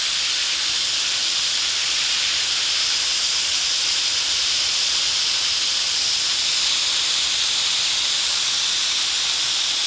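Steady hiss of compressed air blowing out of a Tsunami CORE desiccant air dryer's outlet through a fresh desiccant cartridge and across the sensor of a handheld humidity and dew point meter.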